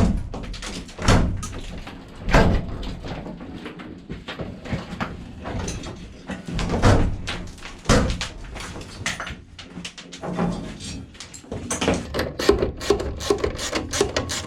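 Irregular knocks and thuds from demolition work inside a motorhome's gutted interior. About twelve seconds in, quick, even hand-saw strokes begin.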